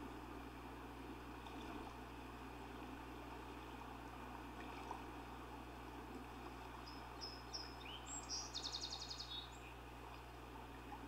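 Faint steady outdoor background hiss, with a small songbird calling a few seconds in: a few short high notes, then a fast trill lasting about a second.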